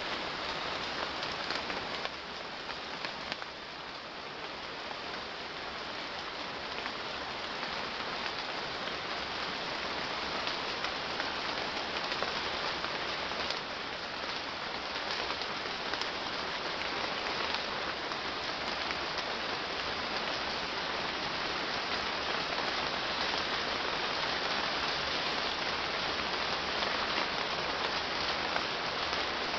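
Steady hiss of heavy rain falling, with fine patter of drops, easing slightly a couple of seconds in and then slowly building again.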